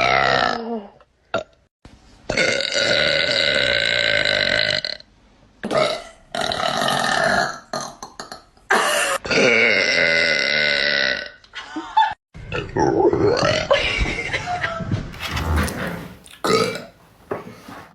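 A run of loud, drawn-out burps from young women, one after another with short gaps between them. The longest hold a steady pitch for over two seconds, and shorter burps come in between.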